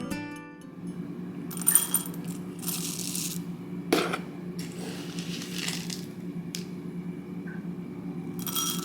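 Light rattling and clinking of small hard kitchen items during food preparation: several short rattling bursts and a couple of sharp clicks, over a steady low hum.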